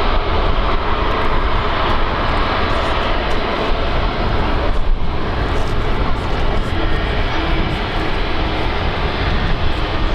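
Jet engines of a departing Airbus A321XLR, a loud, steady rumble.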